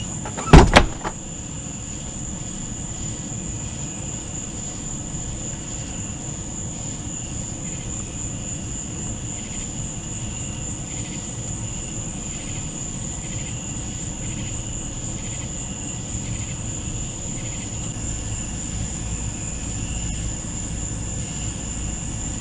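Night insects, crickets or katydids, keep up a steady high-pitched drone, with a fainter pulsing call underneath. A single loud knock comes about half a second in, and a low rumble swells from about three-quarters of the way through.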